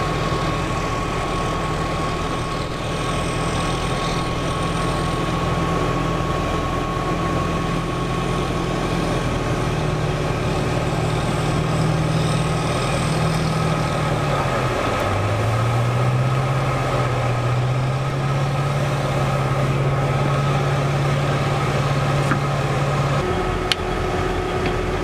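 US Marine AAV7 amphibious assault vehicle's diesel engine running steadily under way through water, with a rushing wash over it. The engine's pitch dips and climbs again about halfway through, and there is a single sharp click near the end.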